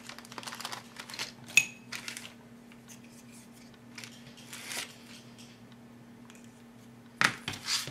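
Clear plastic bag around a plastic model-kit sprue being handled and crinkled, in short scattered rustles, with a sharp click about a second and a half in and a louder rustle near the end as a hobby knife is brought to the bag.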